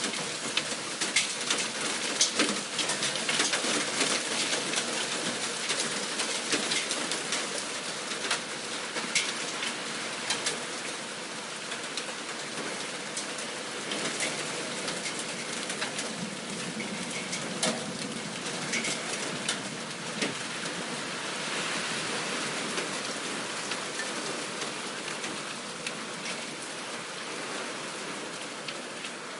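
Hailstorm: a dense, steady patter of hailstones with many sharp individual impacts on hard surfaces, the hard hits thinning out somewhat in the second half.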